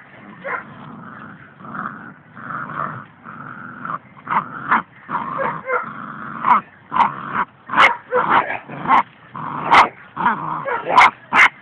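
Dog growling and whining while tugging at a cloth in play, steadier at first, then in short, louder bursts about one or two a second over the second half.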